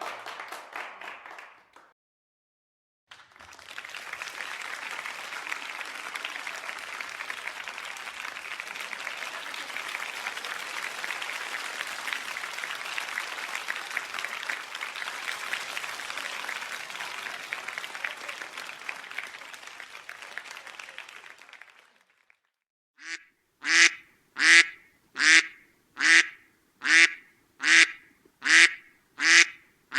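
Audience applause, a steady clapping that swells and then fades away, followed by a duck quacking in a quick even run of loud quacks, about three every two seconds.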